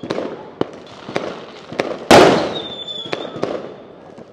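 Fireworks going off: scattered sharp bangs and one much louder boom a little past two seconds in, followed by crackling. Just after the boom, a high whistle slides slightly downward for about half a second.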